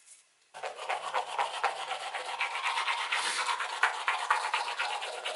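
Manual toothbrush scrubbing teeth in quick back-and-forth strokes, starting about half a second in.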